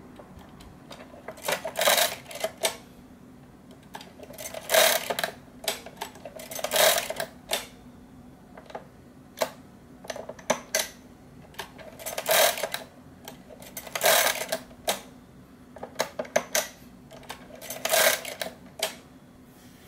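Tiger hand-cranked pinwheel mechanical calculator doing a multiplication: a series of crank turns, each a clattering burst of gear and ratchet clicks about two seconds apart, with shorter single clicks in between.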